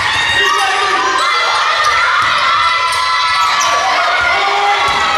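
Basketball game sounds on a hardwood court: sneakers squeaking in short high tones and the ball thudding on the floor as it is dribbled, with players calling out.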